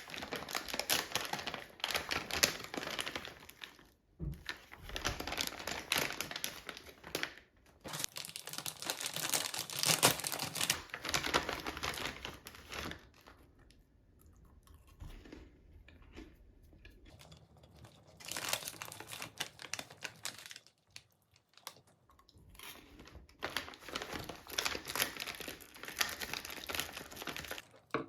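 Crinkling and tearing of packaging being handled, in stretches of a few seconds with short pauses between them.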